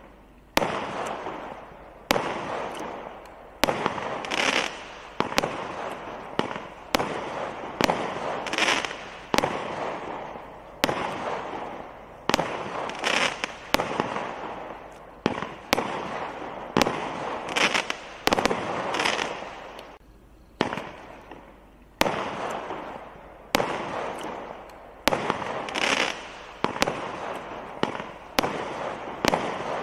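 Consumer firework cake firing a long series of aerial shots, about twenty in all. Each shot is a sharp bang, roughly one every second to second and a half, followed by a fading crackling tail. There is a short lull about two-thirds of the way through.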